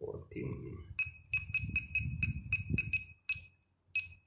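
70mai Dash Cam Pro's button beeps: about ten short, high electronic beeps in quick succession, then a couple of slower single beeps, as its buttons are pressed to step through the date and time settings. A low handling rumble lies under the first few seconds.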